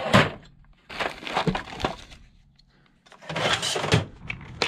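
Rummaging through small parts in a steel parts-drawer cabinet. Clattering and rustling come in three bursts with a quiet pause just past the middle.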